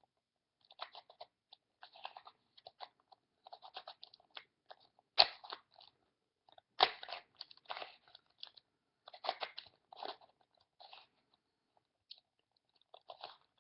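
Rubik's Cube layers being twisted by hand: runs of quick plastic clicks and scrapes, with a few sharper clacks about five and seven seconds in, as the last top-layer edge pieces are worked into place.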